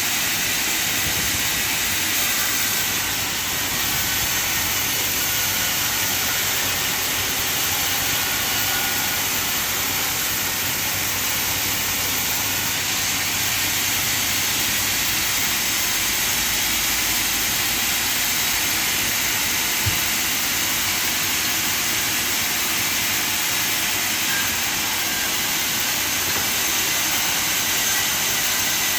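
Sawmill machinery running with a steady, loud hiss, with one short click partway through.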